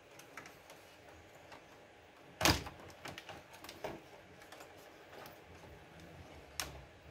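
Clicks and knocks of graphics cards being pulled from a mining rig's motherboard and handled against its metal frame. There is one sharp knock about two and a half seconds in, then a few smaller clicks.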